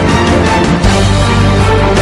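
Background music: an upbeat theme track with a heavy bass line and a steady beat.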